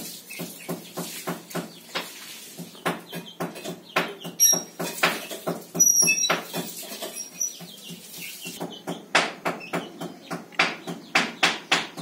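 A small brown bird pecking at a crumb of food held on a fingertip: a rapid series of short dry clicks, about three or four a second, with a couple of brief high chirps about four to six seconds in.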